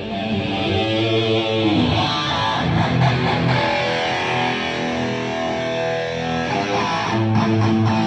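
Electric guitar played through the venue PA during a sound check: sustained chords that ring on and change a couple of times.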